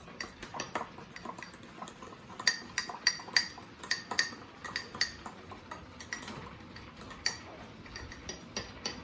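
A fork clinking against the inside of a mug as pancake batter is stirred: irregular metallic taps, a few a second, each ringing briefly.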